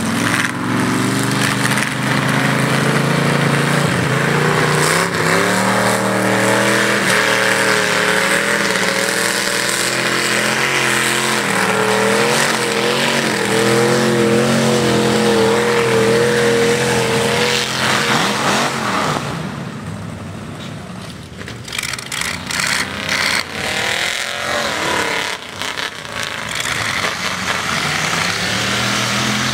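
Mud-bog truck engine revving hard, its pitch wavering up and down with the throttle. It falls away about two-thirds of the way in, then picks up again near the end.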